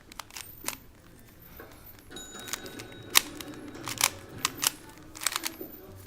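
3x3 Rubik's cube being turned during a speed solve: plastic layers clicking and clacking in quick, irregular turns, the sharpest click about three seconds in. A television plays faintly in the background.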